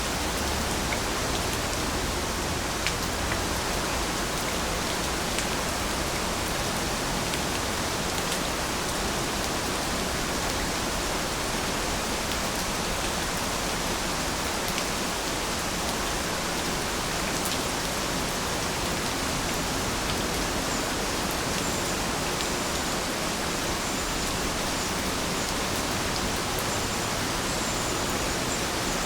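Steady, even rainfall with a few distinct drops ticking through it. Faint high chirps come in during the last third.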